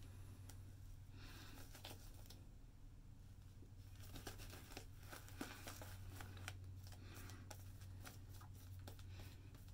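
Yaqi synthetic shaving brush working lather over a face: faint, irregular crackly swishing of the foam, over a low steady hum.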